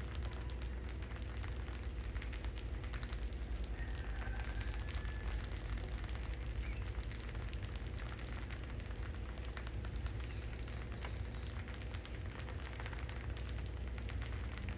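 A heap of field rats shifting and scrabbling against each other on a tiled floor: a continuous crackling rustle of many small clicks and scratches, over a steady low hum.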